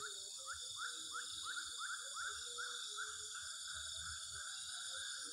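Wild animal chorus: a steady high-pitched insect drone, with a calling animal giving short rising chirps about three times a second.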